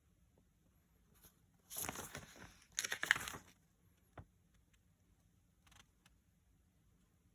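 Two short bursts of rustling, crinkling handling noise, then a single light click.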